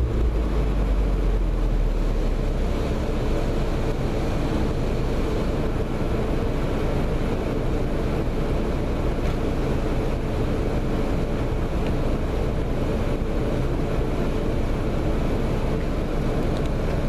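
Honda Civic Type R's 2.0-litre turbocharged four-cylinder idling steadily through a Remus cat-back exhaust, a deep even rumble after the revs have dropped back.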